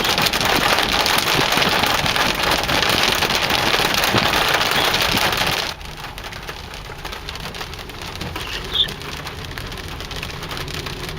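Heavy rain of large drops pelting down on a hard surface, a dense steady hiss. About six seconds in it cuts off abruptly to a much quieter steady background.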